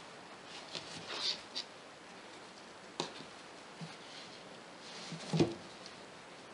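Quiet handling noises of embroidery work: soft rustles and light taps of fingers and satin ribbon on fabric stretched in a frame. There is a sharp click about three seconds in, and the loudest sound is a knock about five seconds in, as the frame is set back down on the table.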